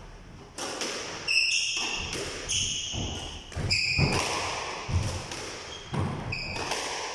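A squash rally: the ball struck by rackets and off the court walls in a string of sharp hits, with shoes squeaking on the court floor in short high squeals between them.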